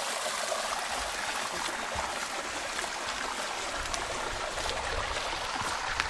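Water running steadily over a small weir in a stream, an even splashing hiss.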